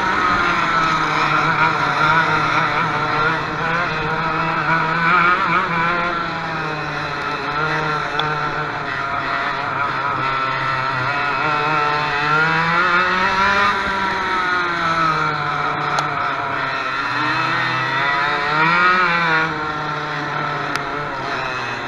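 Racing dirt kart engine heard close up from the onboard camera, its revs falling and rising again through the corners.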